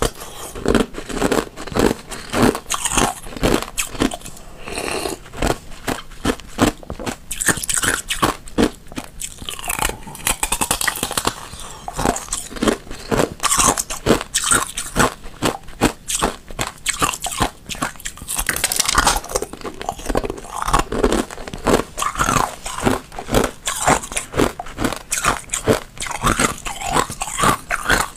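Thin, hollow ice shells being bitten and chewed: a dense, continuous run of sharp crunching and crackling as the ice breaks up.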